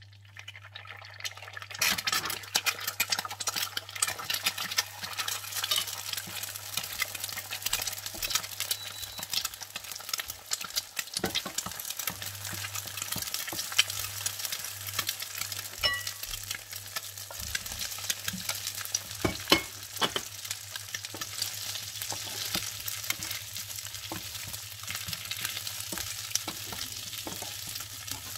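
An egg frying in hot oil, the sizzle building up over the first two seconds, while a wooden spatula scrapes and taps against the pan, scrambling the egg and stirring it through pieces of radish cake.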